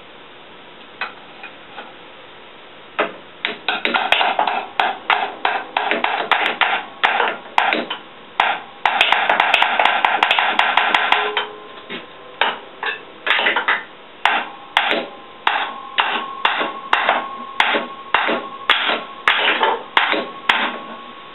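Hammer blows on the steel running gear of a Case crawler: a long series of sharp strikes, about one or two a second, with a rapid flurry of blows in the middle, the struck metal ringing faintly in the later blows.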